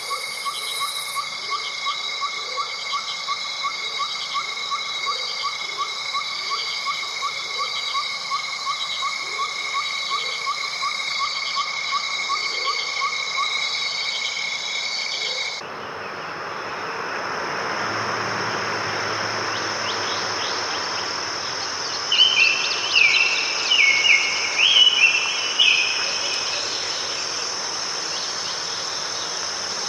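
Chorus of insects: steady high ringing trills with a pulsing chirp about twice a second. About halfway through it changes abruptly to a single steady high insect drone over a soft wash of noise, with a brief bird song of several quick notes later on.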